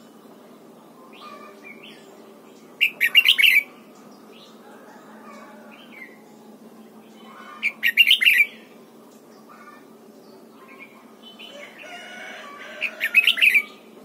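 Red-whiskered bulbul singing three short, loud song phrases about five seconds apart, each a quick run of notes, with fainter chirps between them.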